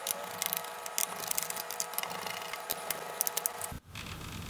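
A small screwdriver loosening the captive bottom-case screws of a Lenovo ThinkPad T470 laptop: light, irregular clicks and scrapes of the bit in the screw heads and against the plastic case, over a faint steady hum. The sound cuts out briefly near the end.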